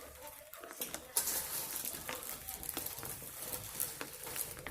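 Slime mixture of white glue, shaving foam and laundry detergent being stirred in a container: a wet scraping with many small clicks, getting louder about a second in.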